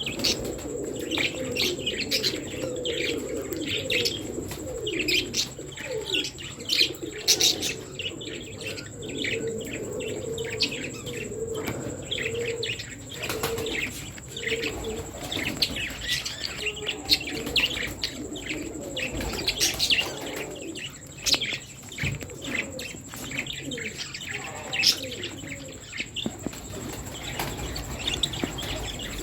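A flock of budgerigars chirping and chattering without a break, many short overlapping calls at once. Through the first half there is also a lower cooing warble.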